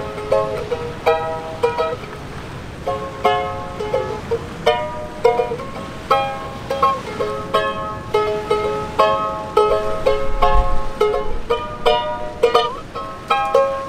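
Small mandolin-like stringed instrument with a flat, teardrop-shaped wooden body being picked, playing a lively melody of bright plucked notes and chords.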